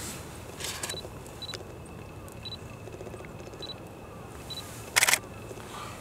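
A camera shutter firing a rapid burst of frames about five seconds in, with a softer burst near the start. In between, a short high beep sounds about five times at uneven intervals.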